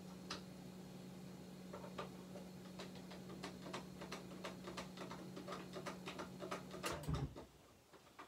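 Irregular small metallic clicks and ticks of a hand tool turning a screw back into a rifle's action and stock, coming faster after the first couple of seconds. A steady low hum underneath cuts off with a thump about seven seconds in.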